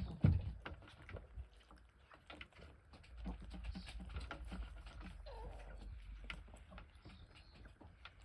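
Chickens moving about: many irregular light taps and scratches, with a thump right at the start and a short cluck about five seconds in.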